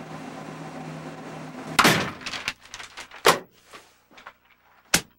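A door slams about two seconds in, followed by a run of lighter knocks and thumps, with another sharp knock near the end.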